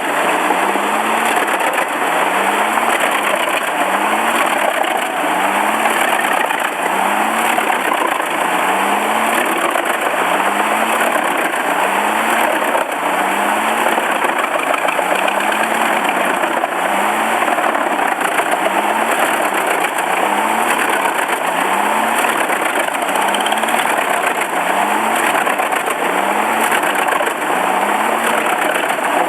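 Engine-driven wood-processing machine running steadily, with a loud, even noise and a low hum that swells up and down in pitch about once a second.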